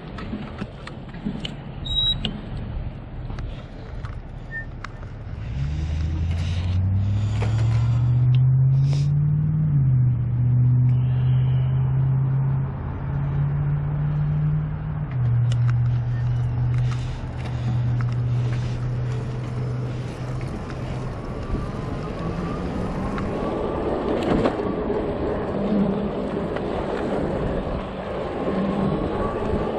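A motor vehicle engine runs close by, rising in pitch for a few seconds from about six seconds in, then holding fairly steady until about two-thirds of the way through. Steady road and wind noise runs underneath.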